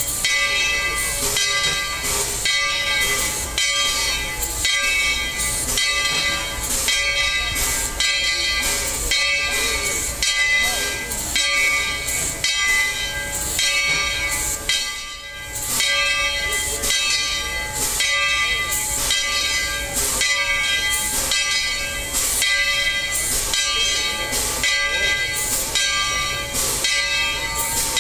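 Tweetsie Railroad's Baldwin 4-6-0 steam locomotive No. 12 standing with steam up: steady hissing with a whining tone underneath, and a regular pulse about twice a second.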